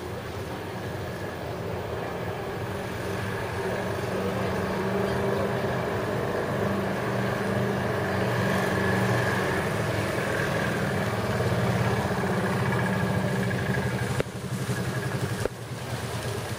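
A motor engine running steadily, growing louder over about ten seconds, then broken off abruptly twice near the end.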